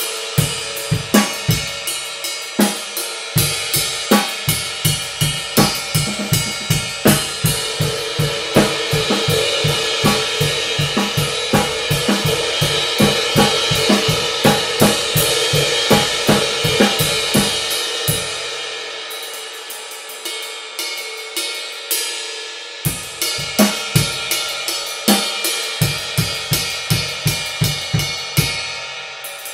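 Stagg DH Exo 22-inch heavy ride cymbal in B20 bronze, played with a drumstick in a steady even groove, its wash building and ringing. Bass drum and other drums play along underneath, dropping out for about five seconds past the middle and leaving the ride alone, then coming back in.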